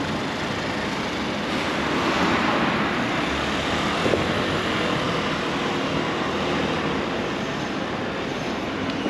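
Steady city street traffic noise, a continuous rush from passing vehicles that swells slightly a couple of seconds in, with a brief knock about four seconds in.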